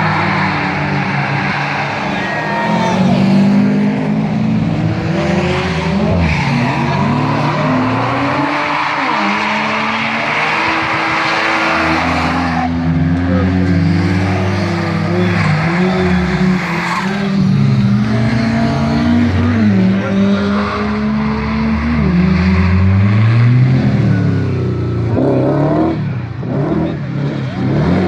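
Rally car engines revving hard, the pitch climbing and dropping again and again through gear changes under acceleration.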